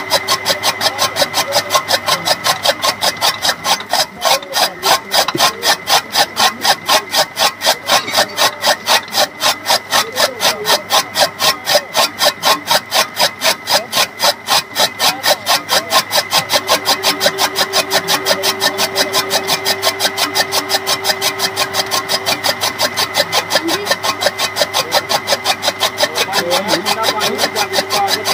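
Motor-driven toka chaff cutter chopping green fodder: the flywheel's blades slice the fodder in a rapid, even rhythm of several chops a second over a steady motor hum.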